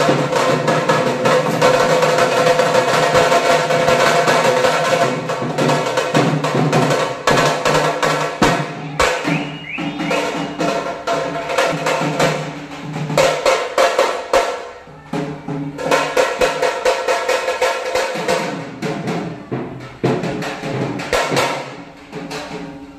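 A small street band's drums playing a fast, dense festival beat with rolls. A sustained pitched melody sounds over the drumming for the first few seconds.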